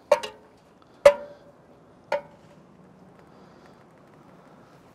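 Metal spatula knocking and scraping against a cast iron Dutch oven while pushing vegetables aside: a few sharp clinks with a short ring, the loudest about a second in, over a faint low background.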